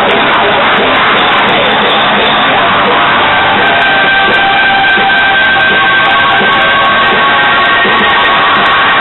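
A metal band playing loud at a rehearsal: distorted electric guitar, bass and drums in a dense, unbroken wash. Held high notes come in over it about three and a half seconds in.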